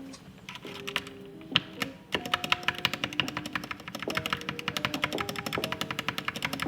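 Typing on a GK68X mechanical keyboard: a few scattered keystrokes, then fast, continuous typing from about two seconds in, over faint background music.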